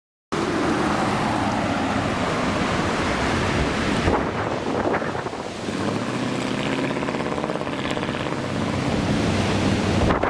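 Strong storm wind blasting across the microphone: a loud, steady rush of noise that cuts in abruptly just after a moment of dead silence.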